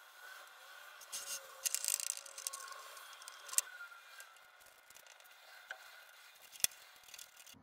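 Foam brush scraping and dabbing epoxy inside a 3D-printed plastic enclosure: a faint scratchy rustle, busiest in the first couple of seconds, with two sharp clicks from the plastic part being handled, about three and a half and six and a half seconds in.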